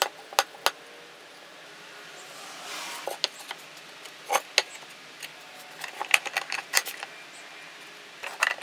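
Cherry boards being set down and pushed together on steel pipe clamps: scattered light knocks and clicks of wood against the metal pipes, with a brief sliding scrape about three seconds in.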